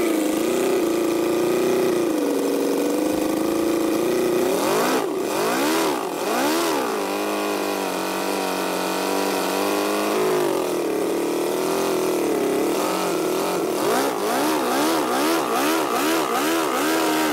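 Small Ferrari V8 engine running at a fast idle, revved up and back down twice about five and six seconds in, then blipped in a rapid series of short revs over the last few seconds.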